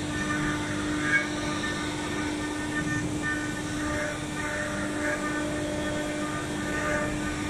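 STYLECNC STM1530C CNC router's spindle running and engraving a decorative pattern into a board: a steady hum with a higher whine that keeps swelling and fading.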